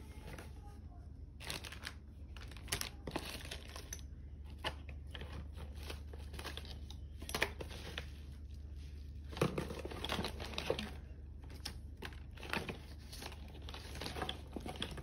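Irregular crinkling and rustling clicks, coming and going in clusters, over a steady low hum.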